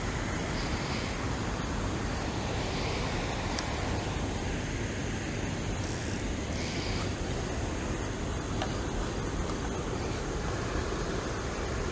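Steady rushing outdoor background noise, even throughout, with a few faint brief higher sounds on top.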